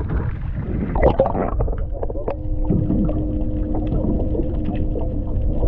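Muffled underwater sound from a camera dipped below the sea surface: water noise, with a steady hum that sets in about two seconds in and scattered small clicks.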